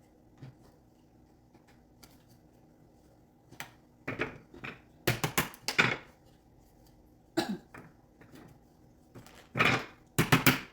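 Wooden parts of a natural-wood plant stand knocking and clacking as the pieces are handled and fitted together: irregular sharp knocks in short clusters, the loudest a quick run about halfway through and another near the end.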